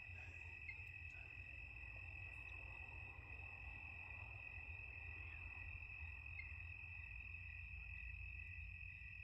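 Faint steady chorus of crickets, an unbroken high trill, over a low rumble.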